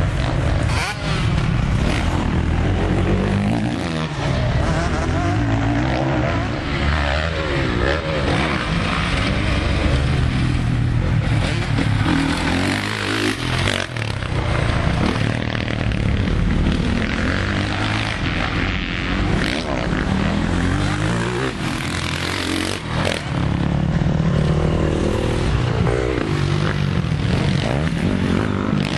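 Motocross bikes' engines revving up and down as they ride the dirt track and its jumps, several engines overlapping with the pitch rising and falling continually.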